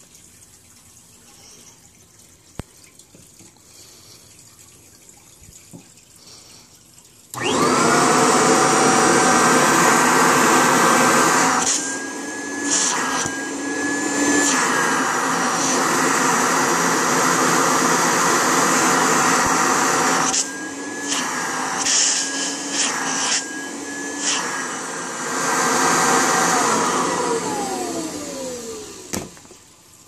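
Kirby Heritage II Legend II vacuum cleaner switched on about seven seconds in, its motor spinning up with a rising whine to a loud, steady run. The sound dips and shifts several times, with a thin whistle coming and going. Near the end it is switched off and winds down with a falling whine.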